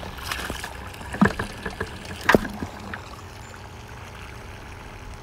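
A plastic bucket with a wire handle being handled, with water sloshing in it: a few sharp clicks and knocks over about the first three seconds, the loudest near one and two seconds in, then only a steady low background.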